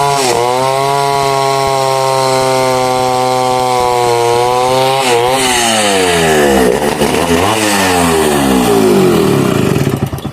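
Two-stroke chainsaw running at high speed while cutting mahogany, holding a steady note for about five seconds. Its pitch then sags and rises several times as the load changes, and the sound cuts off sharply near the end.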